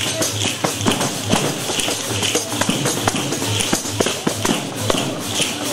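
Live folk music with a steady beat of about two strokes a second and sharp clicks over it.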